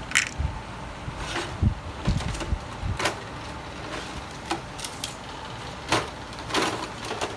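Scattered clicks, knocks and light rattles of hard plastic parts being handled and unclipped inside an opened-up Epson C5290 inkjet printer.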